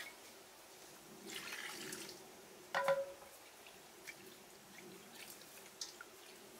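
Water splashing and dripping as a whole plucked chicken is rinsed by hand in a stainless-steel bowl of water, with one short ringing clink about three seconds in.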